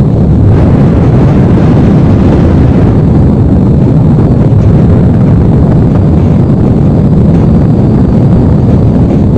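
Loud, steady rumble of wind buffeting the microphone, mixed with road and vehicle noise, while riding in the open cargo bed of a moving truck.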